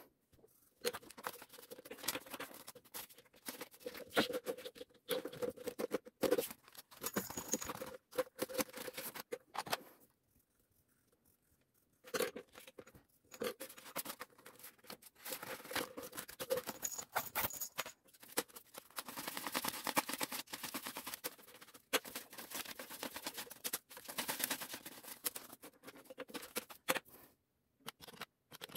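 Korean won paper banknotes being handled and flipped through by hand, with crisp rustling and crackling of the notes and the binder's plastic pocket sleeves. It pauses briefly near the middle.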